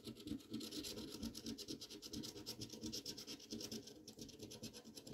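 A coin scratching the coating off a scratch-off lottery ticket in rapid back-and-forth strokes, with a brief pause about four seconds in.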